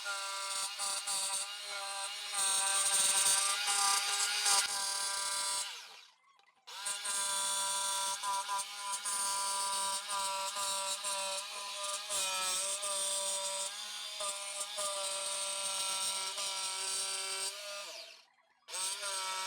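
Electric jigsaw cutting wooden bars, the motor running with a steady whine under the rasp of the blade. It winds down about six seconds in and again near the end, then starts up again each time.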